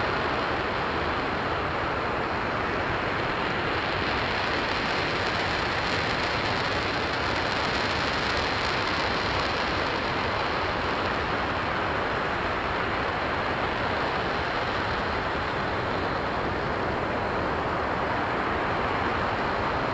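RS-25 liquid-hydrogen/liquid-oxygen rocket engine firing on a test stand: a steady, unbroken rushing noise that holds level throughout.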